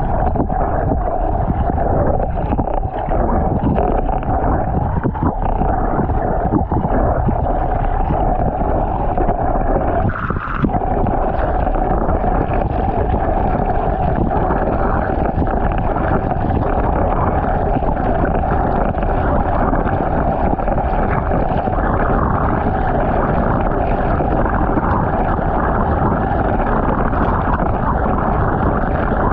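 Water pouring and churning into a filled tub, heard from a camera under the water: a steady, muffled rush of bubbling water, with a brief dip about ten seconds in.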